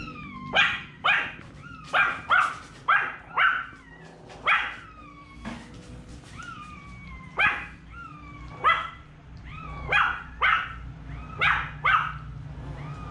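Small dog barking in short, high yaps, about a dozen of them at irregular intervals.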